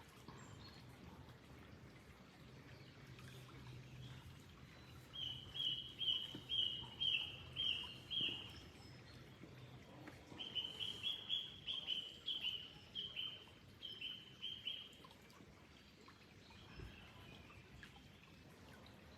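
A bird calling in two runs of short repeated notes, the second run faster and longer than the first, over a faint steady background noise.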